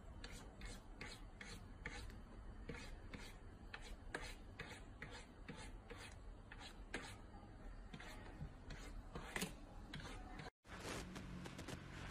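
A cat's paw scratching and scraping at a shelf surface beside a piece of food: faint, quick rasping strokes, about two or three a second. The strokes cut off suddenly near the end.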